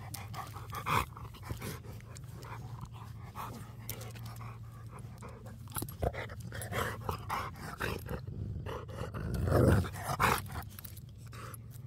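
Dogs play-fighting close to the microphone, with scuffling and dog noises and a louder burst near the end.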